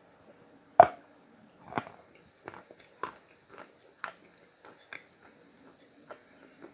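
A person biting into Khrapovsky chalk with one loud crunch about a second in, then chewing it with a string of smaller crunches roughly every half second.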